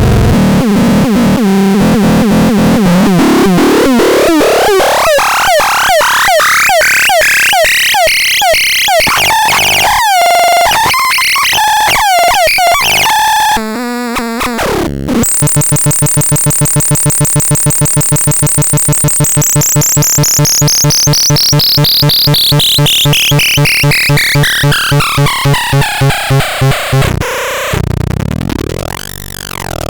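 Petit Chat electronic synthesizer making pulsed, buzzy tones. A rapid pulse train sweeps upward in pitch over the first ten seconds, then comes a short burst of noise, then a steady fast pulsing under a high tone that slides slowly downward.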